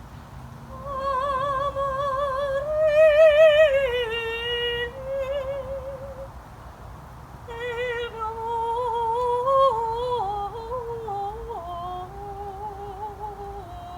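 A woman singing long held notes with vibrato, in two phrases, the second sliding lower toward the end.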